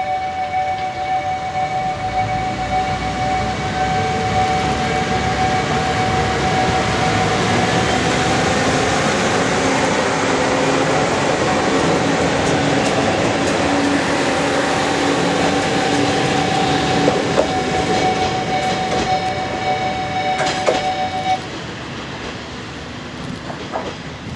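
Watarase Keikoku Railway WKT-series diesel railcar running past close by, engine running and wheels on the rails, with clicks and knocks as it goes over the track. Steady tones run alongside and stop suddenly about three seconds before the end.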